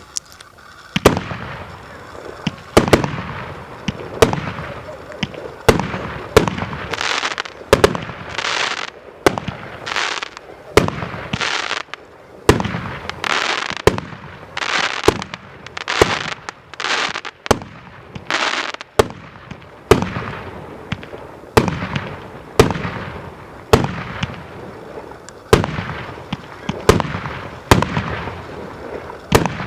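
«Королевский» consumer fireworks cake firing a steady run of shots, about one a second, each a sharp bang followed by a short hiss.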